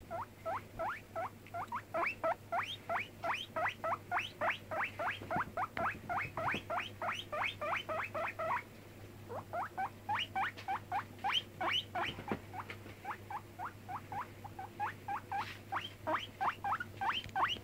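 Five-month-old guinea pig squeaking over and over in short rising squeaks, about three a second, with a pause of about a second near the middle.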